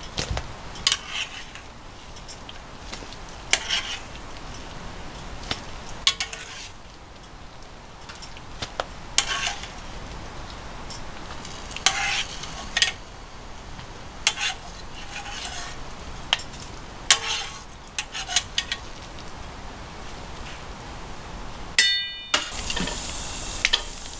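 Wire-mesh skimmer scooping boiled potato slices out of a pot of boiling water, clinking against the pot's rim and a bowl every second or two over a steady hiss. Near the end the sound cuts to a different, brighter hiss.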